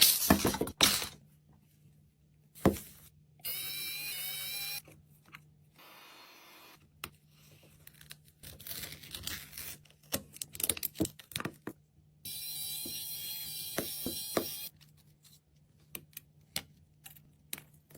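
Small repair tools clicking and tapping against a phone, with two stretches of a steady machine whine, each lasting a couple of seconds.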